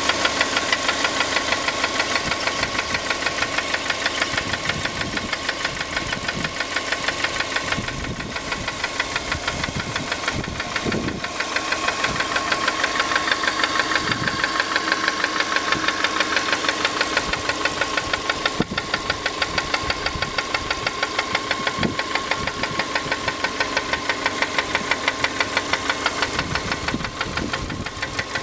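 Subaru Impreza's EJ15 1.5-litre flat-four engine running with a rapid, even knocking that keeps time with the engine: the knock appears once the engine is hot.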